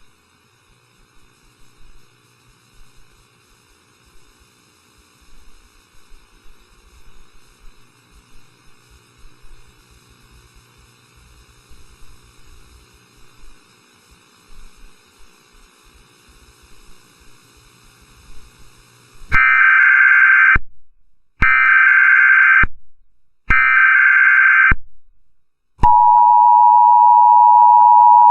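Emergency Alert System broadcast tones: after faint hiss, three loud, screeching data bursts about a second long each (the SAME header) come about 19 seconds in. About 26 seconds in, the steady two-tone EAS attention signal begins and holds.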